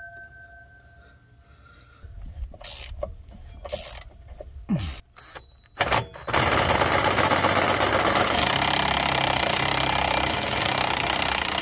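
A few scattered metal clinks and knocks, then, about six seconds in, a cordless impact driver hammers steadily on a bolt of the track loader's front idler, working it loose.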